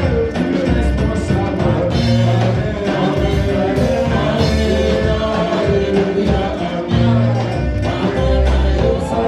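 Live gospel praise band playing with singing: bass, drum kit and other instruments under voices, loud and steady.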